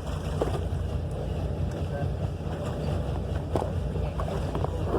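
Steady low rumble of a fishing boat at sea, with wind buffeting the microphone.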